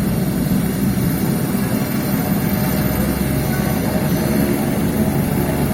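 Helicopter engine and rotor running steadily: a loud, continuous low rumble with a fast flutter.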